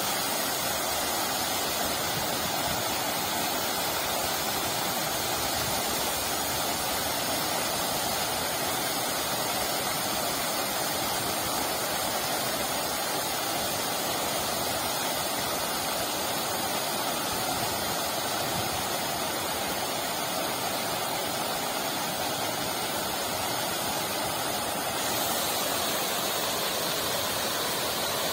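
Large park fountain running: many water jets spraying and falling back into the pool in a steady, even rush of splashing water, a little hissier near the end.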